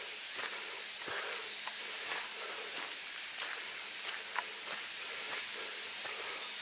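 Cicadas in a loud, steady, high-pitched chorus with a fine, rapid pulsing to it.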